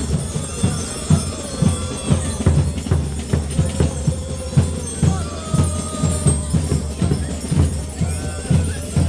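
Gilles' carnival band music: drums beating a steady dance rhythm about twice a second, with jingling bells and a few held instrument notes over it.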